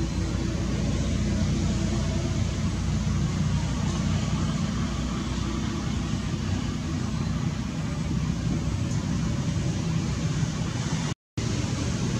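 Steady low engine rumble with a faint steady hum. It drops out for a moment near the end.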